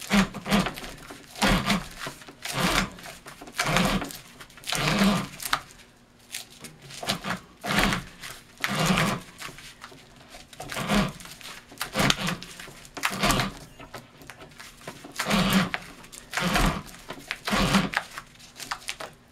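Spiking a large cylinder firework shell by hand: tensioned spiking string drawn around the paper-covered shell as it is turned on roller bars, a rubbing scrape repeating roughly every second.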